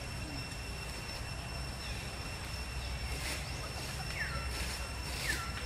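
Outdoor ambience: a steady low rumble under a faint, constant high tone, with two short calls that fall in pitch about four and five seconds in.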